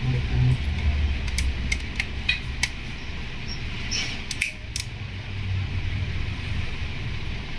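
Plastic back cover of a Vivo Y91 phone being pressed onto its frame, its clips snapping in with a string of small sharp clicks over a few seconds, above a steady low hum.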